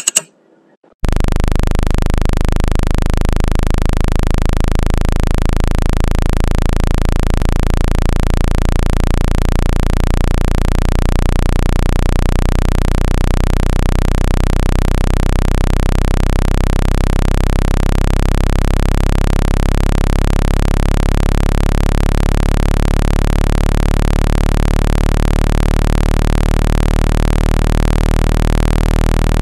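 Synthesized speaker-cleaning sound for pushing water and dust out of a phone speaker: a loud, steady low hum with many overtones over a hiss. It starts about a second in, just after a short click.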